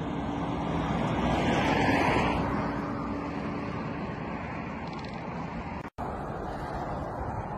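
Steady rushing outdoor noise of wind buffeting a phone microphone, swelling about two seconds in. The sound drops out for an instant near six seconds.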